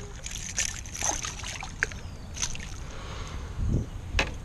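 Water splashing and dripping as a largemouth bass is lifted from the water alongside a kayak, with scattered small clicks and, near the end, a dull thump followed by a sharp knock.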